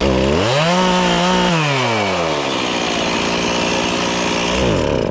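Two-stroke chainsaw revving up hard, easing back down to a steady lower speed, then revving briefly again near the end. It starts and stops abruptly.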